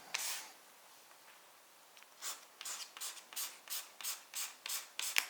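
Quick back-and-forth rubbing strokes on the wooden surface of an end grain cutting board: one brief stroke at the start, then, after a quiet second or two, about ten short scratchy strokes at roughly three a second.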